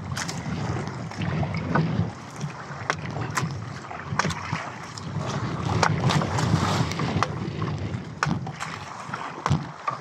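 Wind and sea noise around a small outrigger fishing boat, with scattered sharp knocks and thumps as a gaffed mahi-mahi is held against the hull and handled with a gaff and a wooden club.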